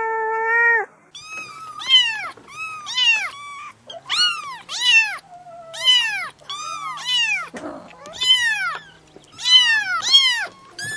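Domestic cat meowing: one long, level meow, then a quick run of a dozen or more short, high meows that each rise and fall in pitch.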